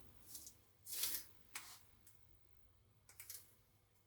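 Faint rustling and crinkling of small parts packaging being handled, a few short soft rustles about a second apart.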